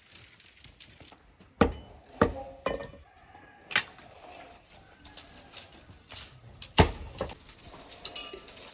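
Five sharp knocks or thuds at uneven intervals, the loudest about a second and a half in and just before seven seconds, over faint outdoor background with short animal or bird calls.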